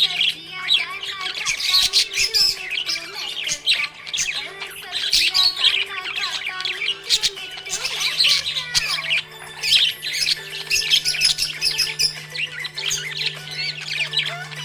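Budgerigars chirping and warbling in a continuous, busy stream of quick squawks and chirps.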